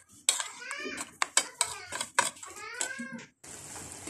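A metal utensil clinks and knocks against a metal pan in quick, irregular strikes, with two high, wavering calls in the middle. Near the end it cuts suddenly to a steady frying sizzle.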